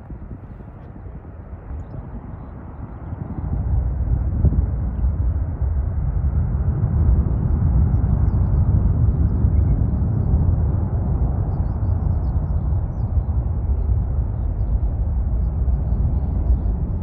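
Twin-engine jet airliner climbing out at takeoff thrust: a deep, rumbling jet-engine roar that swells about three seconds in and then stays loud and steady.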